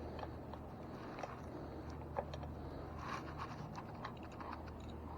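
Scattered light clicks and scrapes of a wrench working the e-bike's front axle nuts, tightened a little at a time on each side, over a steady low hum. The clicks come thickest about three seconds in.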